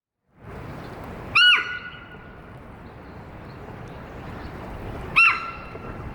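Female Ezo sika deer giving her alarm call: two short, loud, high-pitched shrieks about four seconds apart, each rising and then dropping quickly.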